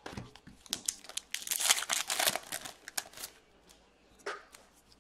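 Crinkling and rustling of plastic packaging as hockey trading cards are handled: a run of quick crackles, densest between about one and two and a half seconds in, with one more near the end.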